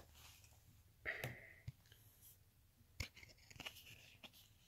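Near silence broken by a few faint handling noises: short soft clicks and rustles about a second in and again around three seconds, from a collectible game card being moved about in the hand.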